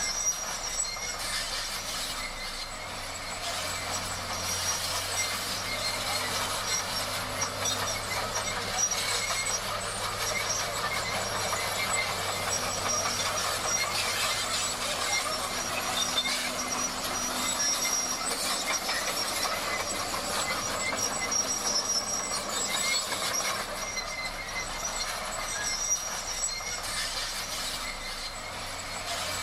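Komatsu D58 crawler bulldozer working: the engine running steadily under the metallic clatter and squeak of its steel tracks, with thin high squealing tones held over the noise.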